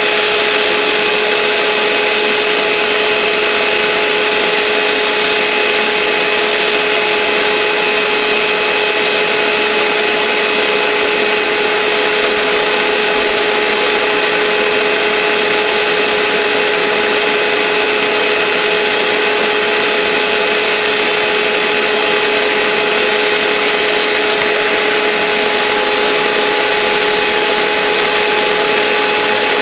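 Hoover SteamVac SpinScrub carpet cleaner running steadily: an even rushing sound of suction with a constant high whine from its motor.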